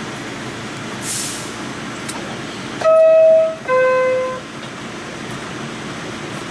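Steady running noise inside an R46 subway car, with a short air hiss about a second in. Near the middle comes a descending two-note 'ding-dong' door chime, a higher tone and then a lower one, each under a second. It is the signal that the doors are about to close.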